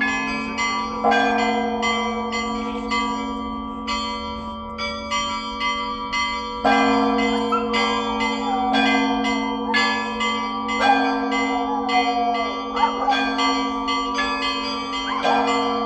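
Russian Orthodox church bells ringing: small bells struck in a quick running pattern over the steady hum of larger bells, with a heavier bell struck every four to six seconds.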